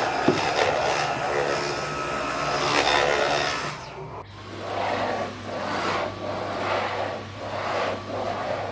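A steady motor whir that breaks off sharply about four seconds in, then returns, swelling and fading about once a second.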